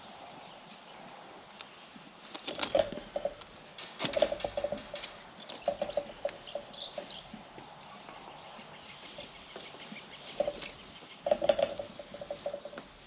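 Short bursts of clattering and rattling, five or so, from a ram shifting in a metal handling chute while a marking harness is buckled on. Birds chirp faintly in the background.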